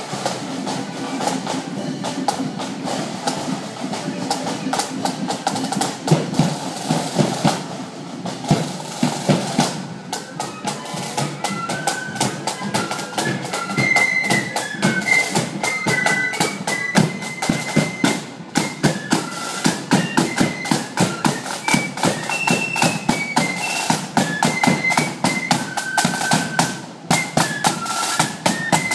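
Marching flute band: side and bass drums beat a steady march, and a high flute melody comes in clearly about twelve seconds in. Flutes and drums then play together.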